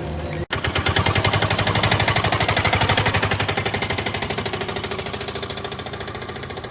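A loud, rapid mechanical rattle of sharp pulses, about a dozen a second, starting abruptly about half a second in and fading slightly toward the end.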